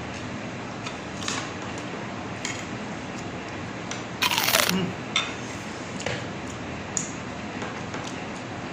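Quiet eating sounds over steady room noise: scattered light clicks and taps, and one louder, sharp noisy sound lasting about half a second a little past four seconds in.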